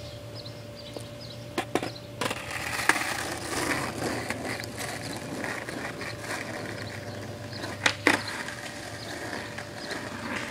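Skateboard wheels rolling on asphalt, with several sharp clacks of the board on the ground, the loudest about three seconds in and a close pair about eight seconds in.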